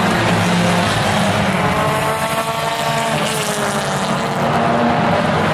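Several tuner-class compact race cars running hard around a paved oval, their engines mixing into a loud drone. The engine notes rise and fall in pitch as the cars accelerate and pass.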